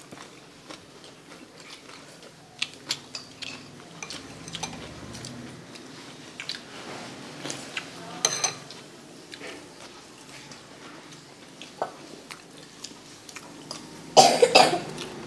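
Soft, scattered clinks of a metal fork in a ceramic bowl of noodle soup, then one loud cough near the end.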